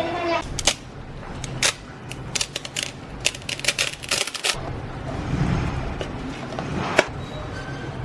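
Hook-and-loop (Velcro-type) strap being handled, peeled and pressed: a run of short crackles and clicks, thickest in the middle, then one sharp click near the end.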